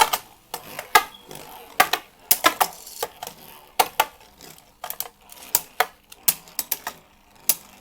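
Two Beyblade Burst spinning tops clashing in a battle: sharp plastic clacks at irregular intervals, some in quick pairs or triples, as the tops collide.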